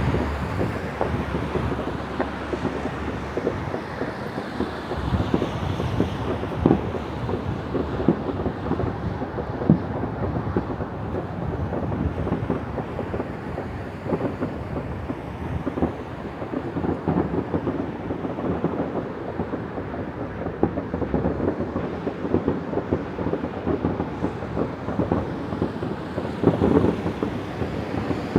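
Fireworks going off far and wide across a city at night: a constant rumble of distant bangs and pops, with a few louder single bangs now and then.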